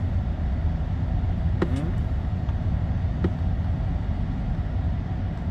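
Steady low rumble of a car heard from inside the cabin, with a couple of faint clicks, one about a second and a half in and another a little after three seconds.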